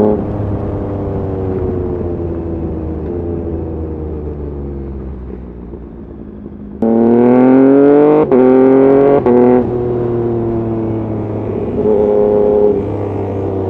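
Yamaha MT-09 inline three-cylinder engine winding down off the throttle with falling pitch, then, about seven seconds in, accelerating hard with rising pitch through quick gear changes that briefly cut the sound, before backing off again.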